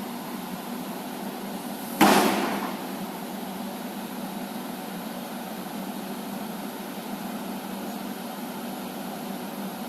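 A single heavy bang of metal on metal from an excavator bucket hammering at a construction site, dying away in under a second, over the steady drone of a running engine. This is the night-time banging heard across the neighbourhood.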